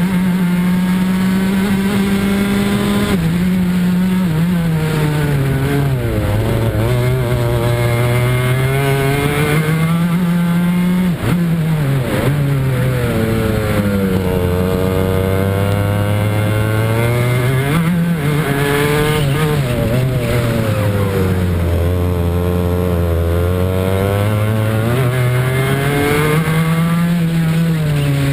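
Two-stroke racing kart engine heard from on board at full racing pace. Its pitch climbs steadily along each straight and drops sharply as the driver brakes for a corner, about four times over.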